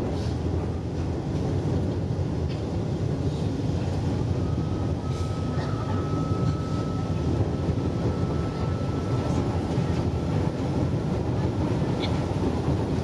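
Manila MRT Line 3 train running, a steady rumble of wheels and motors heard from a moving carriage. A faint high steady whine comes in about a third of the way through and fades near the end.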